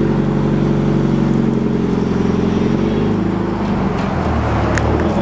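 Subaru BRZ's 2.0-litre flat-four boxer engine idling through its newly fitted exhaust. The note drops slightly about three seconds in.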